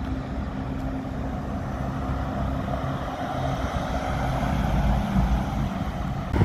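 Mercedes-Benz G 500 4x4² V8 engine running as the off-roader drives past, with tyre noise and wind on the microphone. It grows louder as it nears and is loudest around five seconds in.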